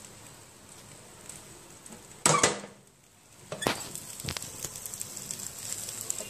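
Handling noises as bread sandwiches are laid into an open electric sandwich toaster: a brief loud clatter about two seconds in, then a few sharp taps and knocks over a light hiss.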